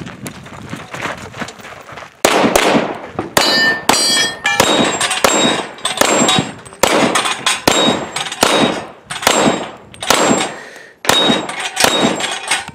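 Rapid pistol fire from an open-class .38 Super Comp race gun, one shot after another about every half second, with struck steel targets ringing after hits. The first two seconds are quieter, then the shooting starts.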